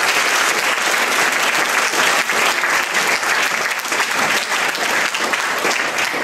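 Audience applauding: many people clapping densely at a steady level.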